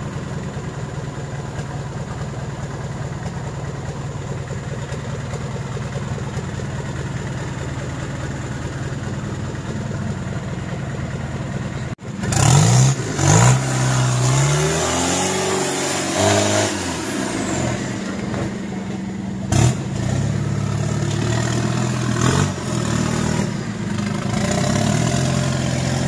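Modified off-road 4x4 engine running at steady revs under load as the vehicle climbs a mud slope. After an abrupt break about halfway through, it revs up and down repeatedly, with a sharp knock about two-thirds of the way in.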